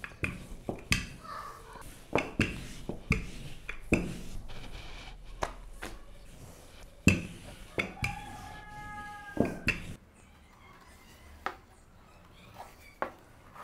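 Wooden rolling pin rolling samosa dough thin on a wooden board, with irregular knocks and taps as the pin is pressed, lifted and set down. A brief high-pitched held tone sounds about eight seconds in, and the last few seconds are quieter with only a few isolated clicks.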